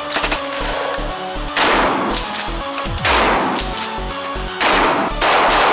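Gunshots over electronic music with a steady beat: a quick burst of shots near the start, then heavy single shots with a long echoing decay at about 1.6 s, 3 s and several more near the end.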